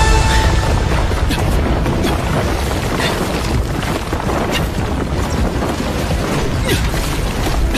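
Film-style soundtrack of a dense, loud rumble with low booms and a few short whooshing streaks, mixed with music, for rock breaking away and crashing water.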